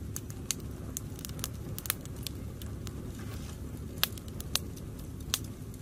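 Wood campfire of dry sticks crackling, with sharp pops at irregular intervals, the loudest about two and four seconds in, over a steady low rumble.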